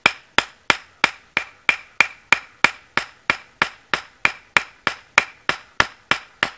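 A wooden mallet striking steadily, about three blows a second, driving a Mora knife's blade into a piece of alder; each knock has a short ring.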